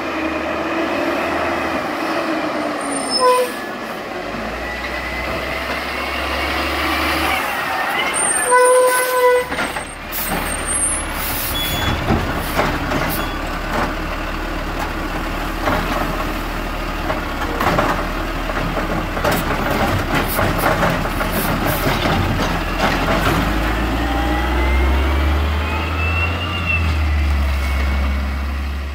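Garbage truck at work. Its engine revs up and down, a short squeal comes about three seconds in, and a louder squeal follows about eight seconds in. A run of clanks and bangs comes from about twelve to twenty-two seconds, and the engine rises in pitch again near the end.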